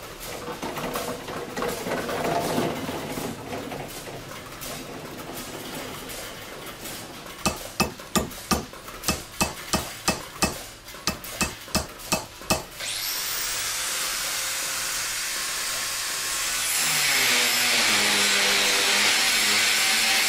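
A blowtorch hissing as it heats a small tool-steel part for hardening. Then comes a quick run of a dozen or so sharp clicks as a toaster oven's dial is turned, and then a steady hiss that grows louder near the end.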